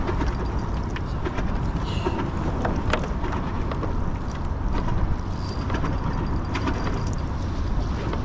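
Wind rumbling on the microphone and water slapping on a plastic kayak hull, with scattered light clicks from a fishing reel being wound against a bent rod while playing a fish.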